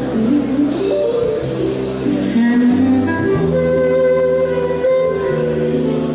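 A small live band playing in a jazzy style: a woodwind of the clarinet type plays a melody in held notes over electric keyboard and a drum kit with light cymbal strokes.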